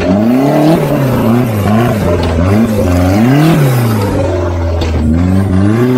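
Off-road 4x4's engine revving up and down again and again, its pitch rising and falling every second or so, as the truck is worked over boulders.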